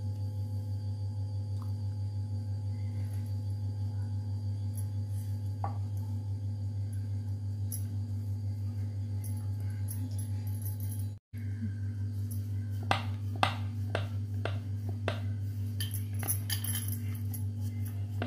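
A steady low electrical hum throughout. In the second half, scattered light knocks and taps of a wooden rolling pin on a wooden rolling board as folded dough is rolled out.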